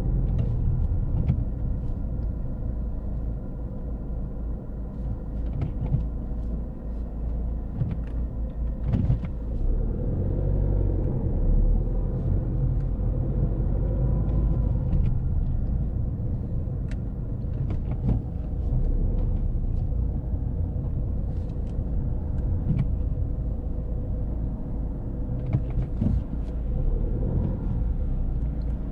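Volvo S40 1.6D's four-cylinder turbodiesel running with road rumble as the car is driven. Short knocks come now and then.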